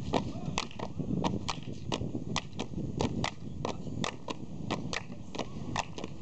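Sharp, irregular clicks or claps, a few each second, over a low murmur of crowd voices.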